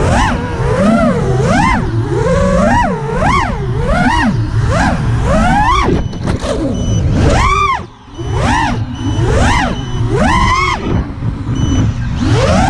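FPV quadcopter's brushless motors whining, the pitch swooping up and down again and again as the throttle is punched and eased through flips and dives, over wind rumble on the onboard camera's microphone. The motor sound drops away briefly about eight seconds in, as on a throttle cut.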